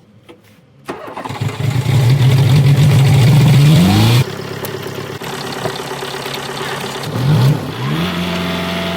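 BMW 330i's four-cylinder TwinPower Turbo petrol engine starting about a second in and running at a high idle. It rises briefly in pitch, then settles to a lower, steady idle at about four seconds. There is a short rev blip near the end before the idle steadies again.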